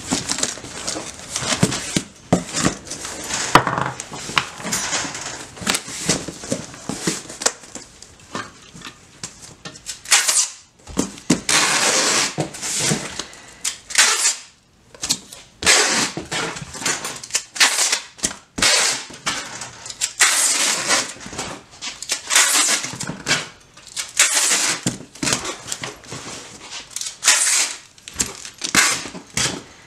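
Packing a cardboard box: white packing paper and foam sheet rustling and crinkling as they are pushed in around the part, cardboard flaps handled, then packing tape pulled off the roll in long noisy strips and pressed down to seal the box.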